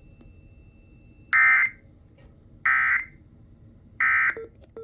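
Emergency Alert System end-of-message tones: three short, loud bursts of SAME digital data, each a fraction of a second long and about a second and a half apart, with a rasping two-tone warble. They signal that the alert message is over.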